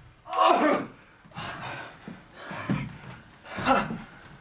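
A man groaning and gasping as he acts out dying: four cries about a second apart.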